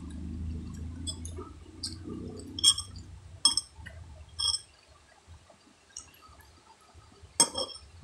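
Close eating sounds: muffled chewing and handling noise at first, then a few sharp ringing clinks of a metal spoon against a glass, roughly a second apart, with one more near the end.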